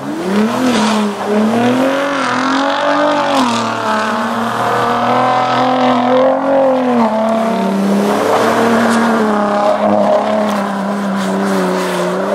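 A 2021/22 Ford Raptor's high-output 3.5-litre twin-turbo EcoBoost V6 being revved hard through its active-valve exhaust as the truck does donuts in snow. The engine note climbs and falls over and over.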